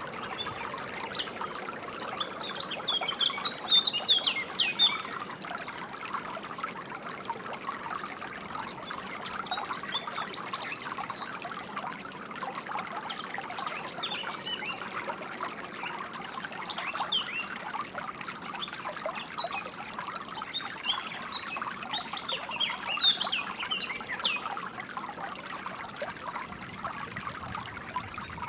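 Small stream of water trickling and splashing steadily, with songbirds chirping over it in short bouts every few seconds.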